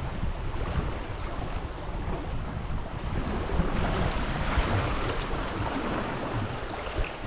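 Steady wind rumbling on the action camera's microphone over the wash of river water around a drifting raft.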